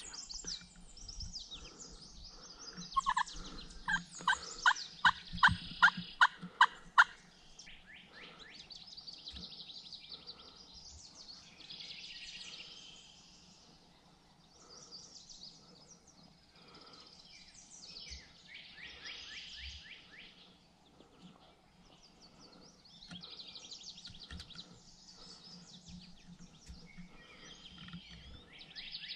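Wild turkey calling: a loud run of about nine evenly spaced notes a few seconds in, with quieter turkey calls later and small birds chirping throughout.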